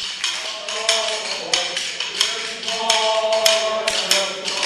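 Hands clapping in time, about three claps a second, along with music.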